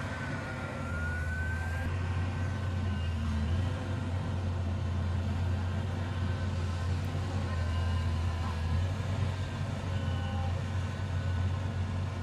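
Caterpillar hydraulic excavator's diesel engine running steadily under load as it digs, a low even drone. A faint high whine dips and then rises within the first two seconds.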